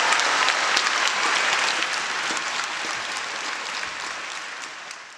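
Audience applause, many hands clapping, fading out steadily toward the end.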